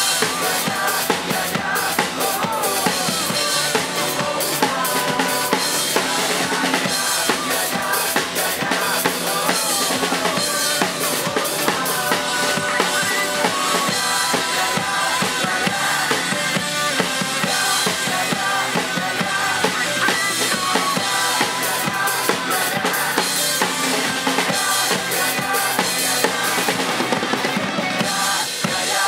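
Acoustic drum kit played hard, with bass drum, snare and cymbals, along to a recorded rock song with vocals coming through a loudspeaker.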